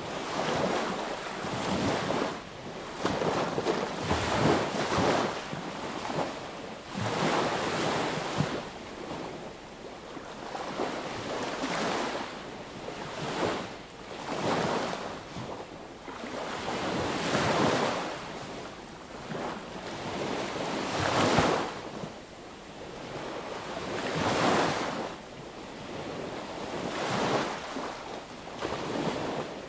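Small sea waves breaking and washing up the beach, one surge following another every two to three seconds.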